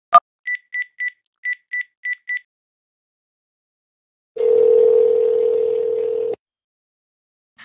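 A sharp click, then seven short, same-pitched mobile phone keypad beeps as a number is dialled, in quick groups. About four seconds in comes a single steady call ringing tone lasting about two seconds.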